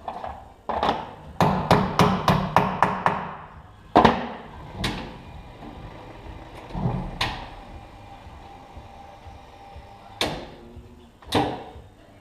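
Hammer tapping clip-on balance weights onto a steel wheel rim. There is a quick run of about seven sharp taps, then a few single knocks spread out.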